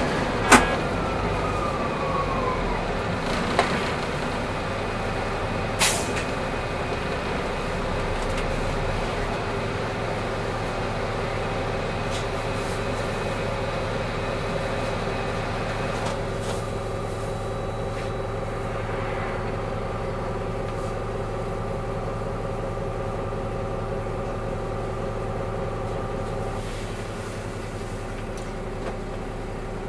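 Solaris Urbino 8.9LE city bus drawing to a stop: a falling whine from the drivetrain as it slows, and three short sharp sounds in the first six seconds, typical of the air brakes. The diesel engine then idles steadily with the bus at a standstill.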